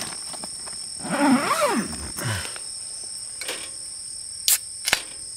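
Crickets chirring steadily at two high pitches. About a second in, a man lets out a drawn-out vocal sound that rises and then falls. Two sharp clicks come near the end.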